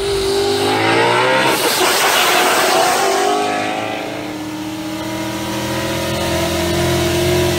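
An engine accelerating hard, its pitch climbing; about a second and a half in it breaks briefly, like a gear change, then pulls and climbs again.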